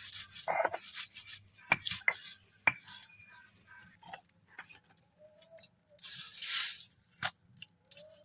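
Stone grinding stone (shil-nora) in use to grind ginger, cumin and green chilli into paste: scattered knocks of stone on stone with a brief rough scrape near the end.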